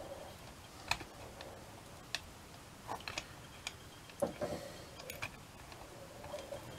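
Small brass clock parts clicking and tapping as a part is worked by hand onto the torsion clock movement's pins, which are slightly bent and keep it from going on. There are about eight faint, irregular clicks, a few of them close together around the middle.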